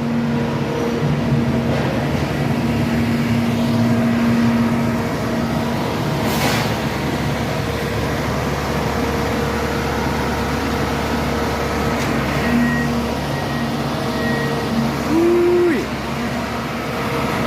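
Diesel engine of a railroad track-repair work machine running steadily, with a short, louder tone near the end.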